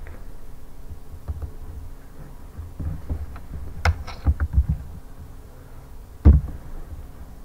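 Irregular low thuds and a couple of sharp clicks from a computer mouse and desk being handled close to the microphone, over a faint steady hum.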